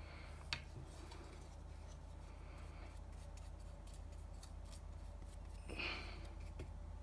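Faint scratchy clicks of a small brush dabbing acetone onto a plastic tailgate handle piece and into a small tub, with one sharp click about half a second in and a short rustle near six seconds, over a steady low hum.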